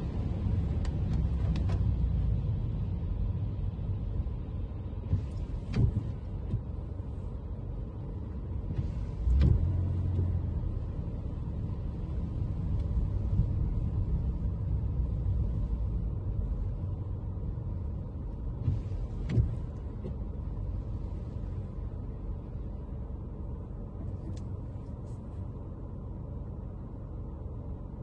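Toyota Camry driving on rain-wet city streets: a steady low road and engine rumble, with a few brief hissing swishes and short thumps, the loudest about nine seconds in. It grows a little quieter near the end.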